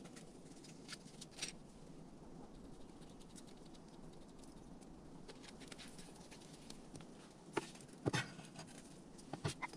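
Scattered light clicks and taps over steady low background noise, with sharper knocks about eight seconds in and a quick run of three more near the end.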